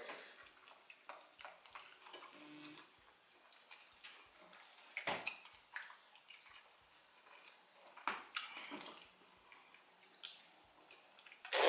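Wet chewing and lip-smacking of someone eating soft plantain porridge by hand: scattered short clicks and smacks, a few louder ones about five, eight and ten seconds in.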